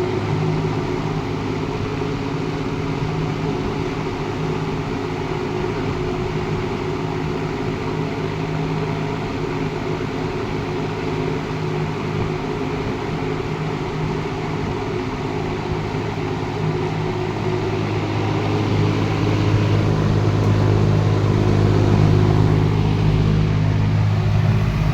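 Monarch Aire 20-inch two-speed box fan running on high speed: a steady motor hum with the rush of air from its square blades, growing a little louder near the end.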